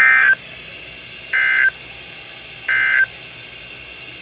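NOAA Weather Radio SAME end-of-message code: three identical short, buzzy data bursts, each about a third of a second long and a little over a second apart, over steady radio hiss. The bursts signal the end of the special marine warning alert.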